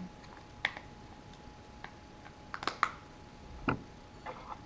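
A handful of light clicks and taps as grip panels are handled and fitted onto a 1911 pistol frame, with a quick cluster of clicks around the middle and a duller knock shortly after.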